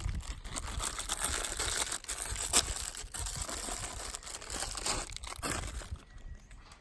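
Self-adhesive vet wrap bandage being pulled off its roll and wound on, a dense crackling and tearing that stops about six seconds in.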